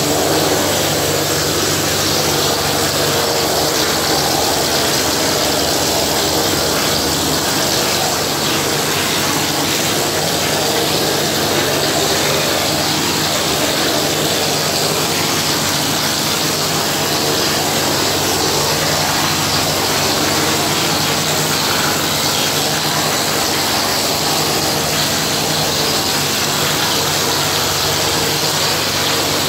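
Plaster spray gun blowing gypsum plaster onto a wall with a steady hiss of compressed air, over the continuous hum of the plastering machine's motor and compressor.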